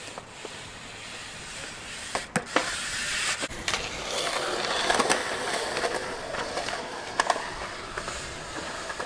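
Wheels rolling over skatepark concrete, swelling for a few seconds in the middle, with several sharp clacks and knocks from bike and board landings.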